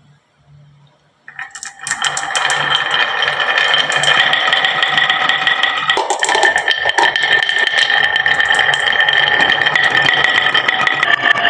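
Many glass marbles rolling and clattering down a wooden marble-run slope, a dense stream of rapid clicks with a steady ringing hum from the rolling, starting about a second in and continuing without a break.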